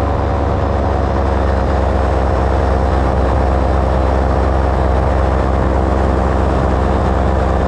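An engine running steadily at a constant speed, a low drone with a layered hum that does not change.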